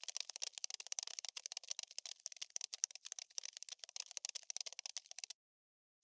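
Rapid, dry clicking and scratching, a looped scuttling sound effect for a running cockroach. It cuts off abruptly to dead silence about five seconds in.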